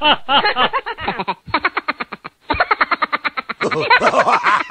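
Manic laughter: a fast, unbroken string of 'ha' syllables, pausing briefly about one and a half seconds in and again just after two seconds.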